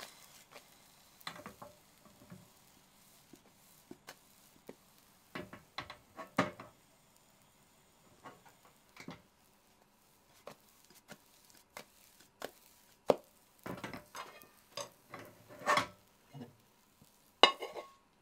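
Irregular knocks and taps of a Teflon-coated frying pan being handled and jolted over a gas burner while an omelette is rolled and flipped, a few knocks much louder than the rest. Near the end comes a sharper clink as the pan's rim meets the plate while the omelette is turned out.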